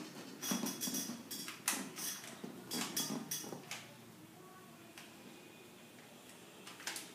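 Plastic Rubik's cube being twisted by hand: a quick run of clacking clicks as the layers are turned, then a quieter stretch with one more click near the end.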